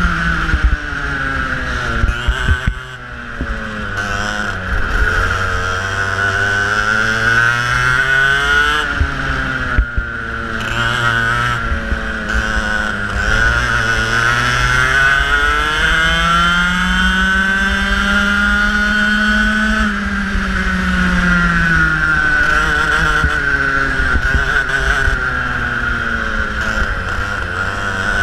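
Racing kart engine heard close from the kart itself, its pitch rising on the straights and dropping into the corners several times, with a long climb to its highest pitch about two-thirds of the way through. A few sharp knocks come through over the engine.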